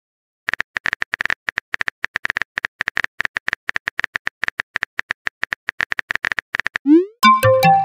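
Phone keyboard tapping sound effect: rapid, irregular clicks for about six seconds as a text message is typed. Near the end comes a short rising swoosh and a loud burst of chiming tones, the message-sent sound.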